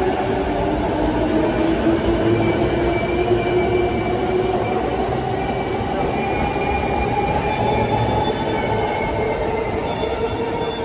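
Orange-striped Chuo Line electric trains moving along the platform tracks: a steady rumble of wheels on rail with several high, steady whining and squealing tones over it.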